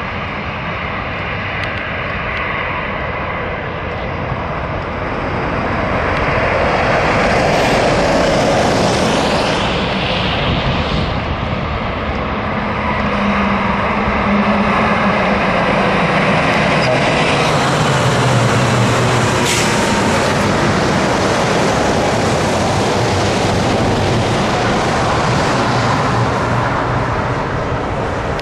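Scania V8 diesel truck running on the road, engine note over steady road and tyre noise; the engine pitch falls about halfway through.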